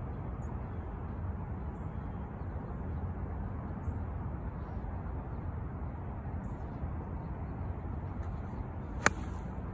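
Golf 8-iron striking a ball off turf: one sharp, crisp click near the end. Under it, a steady low outdoor rumble.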